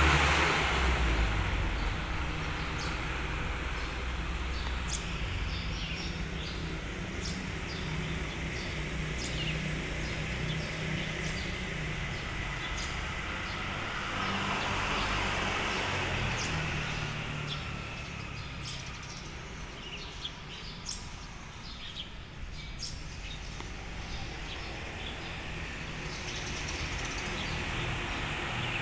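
Outdoor background: a steady low rumble with scattered short, high chirps.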